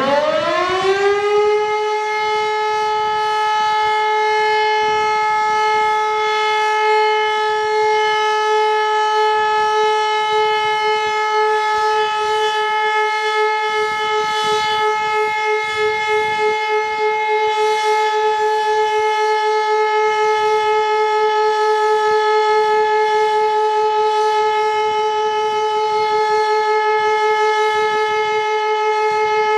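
Elektror L1/F2 motor-driven rotary siren finishing its spin-up with a rising wail in the first second or so, then holding one steady, loud tone: the continuous signal of a siren test.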